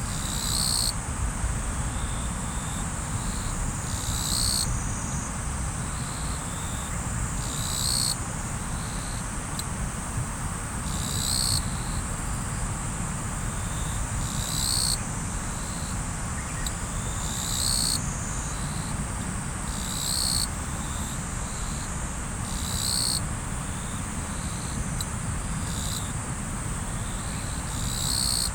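River water flowing steadily, with a continuous high insect trill over it. A louder, shrill high-pitched call repeats about every three seconds.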